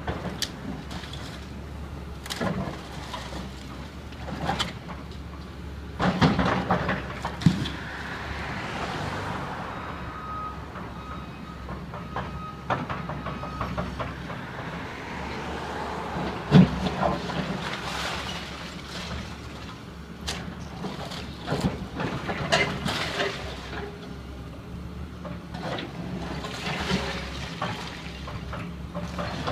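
A Caterpillar hydraulic excavator's engine running steadily while it pulls down a timber-framed building, with irregular cracks, crashes and clatter of splintering wood and falling debris; the loudest crash comes a little past halfway.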